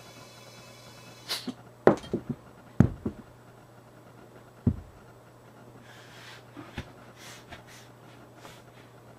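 Compressed air hissing with a whistling edge from an air chuck on a small tubeless lawn tractor tire, cutting off about a second in; the bead has not seated, so the tire is not holding air. Then several sharp thumps and knocks as the wheel is picked up and handled, the loudest about two and three seconds in, followed by faint rustling.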